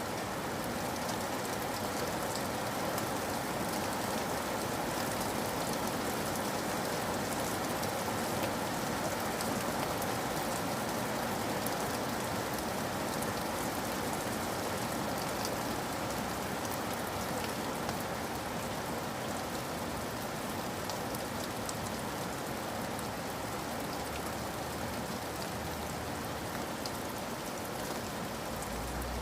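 Steady rain falling, an even hiss dotted with fine, scattered drop ticks.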